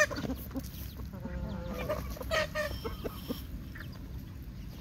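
Roosters clucking in short calls, the loudest about two and a half seconds in.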